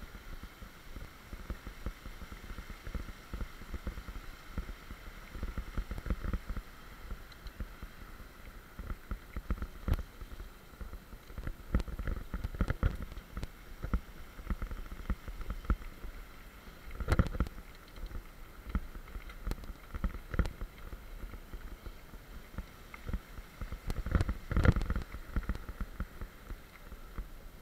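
Mountain bike rolling fast down a rough dirt trail, the bike and camera rattling and knocking over bumps and roots. The ride is peppered with sharper jolts, the hardest a little past halfway and near the end, over a constant rumble of wind on the microphone.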